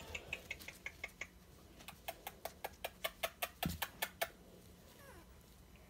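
Three-week-old dachshund puppies squeaking: a few short high squeaks in the first second, then a quick run of sharp squeaks, about six a second, from about two seconds in until just past four seconds.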